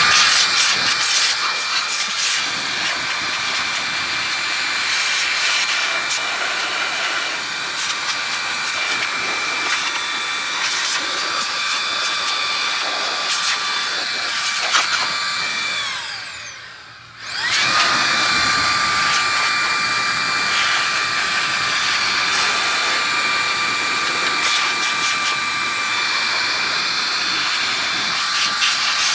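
Small high-speed electric tool moving air, blowing or vacuuming dirt out of a sliding gate motor. It gives a steady high whine over a rush of air. About 16 seconds in it is switched off and winds down, then starts again and spins back up a second and a half later.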